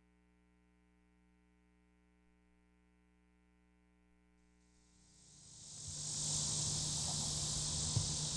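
Near silence with a faint hum for about five seconds, then outdoor ambience fades in: a steady, high chorus of insects chirring, with a low rumble and a few small bumps underneath.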